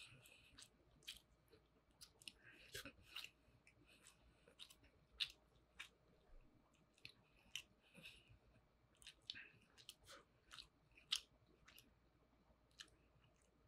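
A person chewing a mouthful of spam musubi (rice and pan-fried spam) close to the microphone: quiet, irregular mouth clicks, with a couple of louder ones about five and eleven seconds in.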